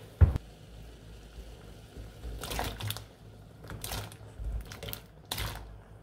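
Diced potatoes and carrots dropped into a pot of boiling water, splashing in about five short bursts over the last four seconds, after a single dull thump right at the start.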